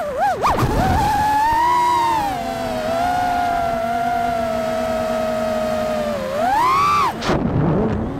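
FPV quadcopter's brushless motors whining under changing throttle. The pitch wobbles quickly in the first second, holds fairly steady through the middle, then swells higher about seven seconds in before dropping away.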